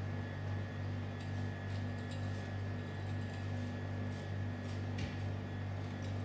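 Steady low mechanical hum of kitchen equipment with a faint high whine, over which a hand peeler makes soft, irregular scraping ticks as it strips the skin from an apple.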